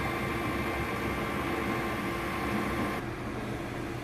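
KitchenAid stand mixer running on low speed, a steady motor hum as it beats a full bowl of cream cheese batter. The hum stops abruptly about three seconds in, leaving quieter room tone.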